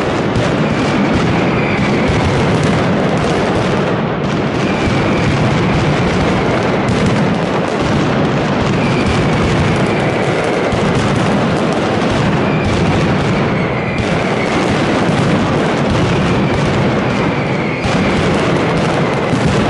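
Fallas mascletà: a daytime barrage of firecrackers going off in a dense, unbroken rattle of loud bangs, with short faint high whistles every couple of seconds.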